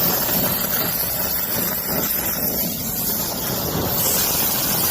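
Brazing torch flame burning steadily, an even hiss with no breaks, while brazing rod is melted over a copper joint to cap it.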